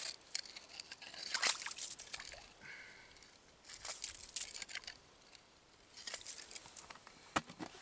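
Snow and slushy ice at a covered ice-fishing hole being scraped and crunched by hand and with a wire, in irregular bursts with a few sharp clicks.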